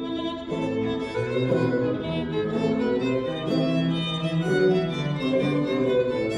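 Violin playing a melody in an instrumental break, over lower sustained accompanying notes.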